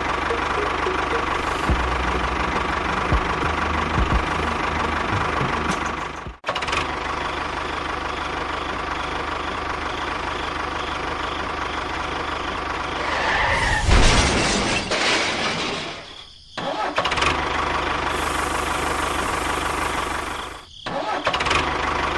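Small motor of a miniature model tractor running steadily with a constant hum, cutting out abruptly three times, with a louder rough stretch in the middle.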